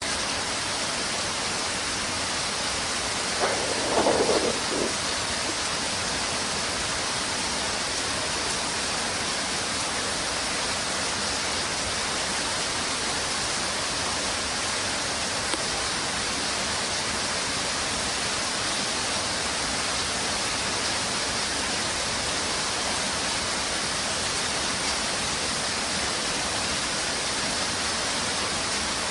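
Steady rain falling, an even hiss throughout. About four seconds in, a brief louder sound rises over it for about a second.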